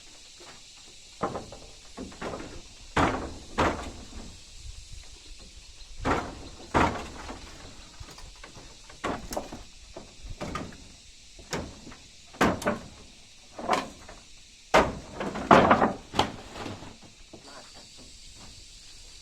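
A series of irregular knocks and thuds, about a dozen spread unevenly, with the heaviest cluster a few seconds before the end.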